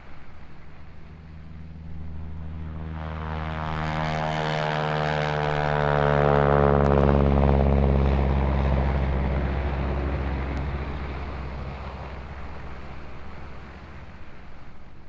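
Propeller fighter plane's piston engine growing louder as it comes close, loudest about halfway through. It then passes, and its pitch drops as it draws away and fades.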